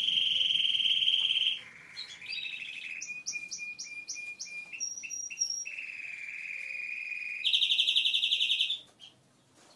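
Male canary singing at full intensity: a run of fast trills and rolling repeated notes, pausing briefly about two seconds in. The loudest is a fast trill near the end that stops abruptly, typical of a male canary in breeding condition.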